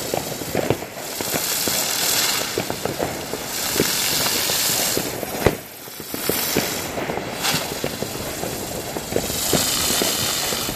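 Ground spinner firework hissing as it throws off sparks, the hiss swelling and fading in several waves, with a scatter of small crackles and a sharper pop about five and a half seconds in.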